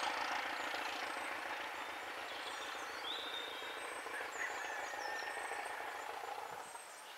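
Class 205 'Thumper' diesel-electric multiple unit 1132 pulling away, its English Electric four-cylinder diesel engine beating steadily and fading into the distance. Birds chirp over it from about halfway through.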